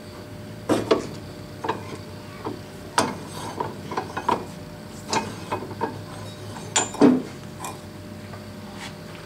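Dake arbor press pressing a ball bearing into an electric motor's end bell through a socket: a series of irregular metallic clicks and knocks, the loudest about a second in, at three seconds and around seven seconds.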